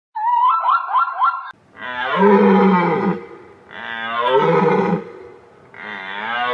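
A quick run of short rising chirps, about four a second, then three long, loud, low animal calls, each lasting about a second and a half and bending in pitch.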